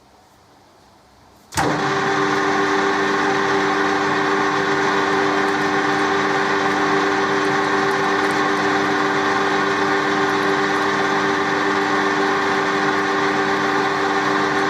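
A Colchester metal-turning lathe switched on about a second and a half in, coming up to speed at once and then running steadily with a steady gear whine, ready for another light cut.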